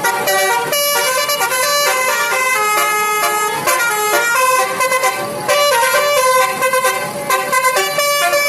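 Indonesian telolet basuri multi-tone bus horn playing a melody, its notes changing in quick steps without a break.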